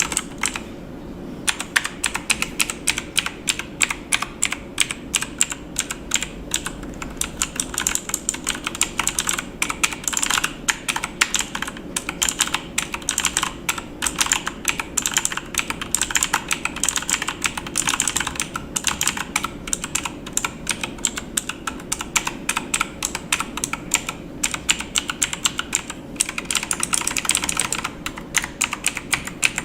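Typing on a computer keyboard: quick, irregular key clicks, several a second, starting about a second and a half in, over a faint steady hum.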